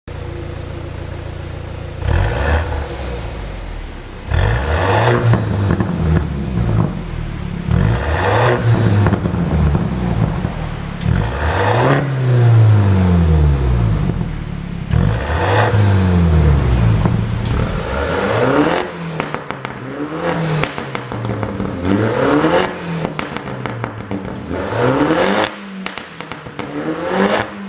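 BMW 430i's turbocharged four-cylinder engine idling, then blipped repeatedly through its tuned exhaust. The first few revs are long rises and falls and the later ones short and quick, with exhaust pops and crackles on the overrun from a pop-and-crackle tune.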